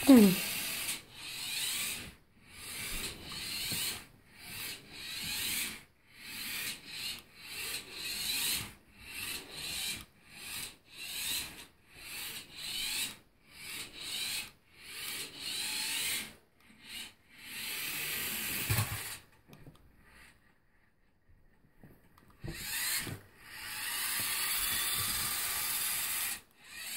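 Small toy remote-control car's electric motor and gears whirring in repeated short spurts as it is driven back and forth, each spurt a few seconds or less, with a pause of about three seconds near the two-thirds mark. A short loud sliding squeak sounds right at the very start.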